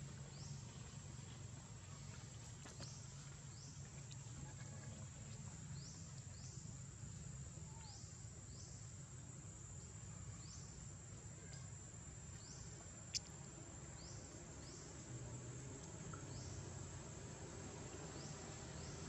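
Faint insect chorus: a steady high-pitched drone with short rising chirps repeating about once a second, over a low rumble. One sharp click about two-thirds of the way through.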